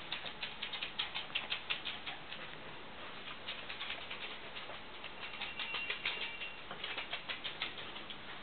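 A small terrier's claws clicking rapidly on a hard floor as it trots about on a search, in quick runs of ticks broken by short pauses.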